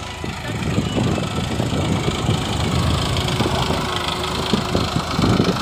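New Holland 3230 tractor's three-cylinder diesel engine running as it pulls a cultivator through tilled soil, getting louder about a second in as the tractor comes up close.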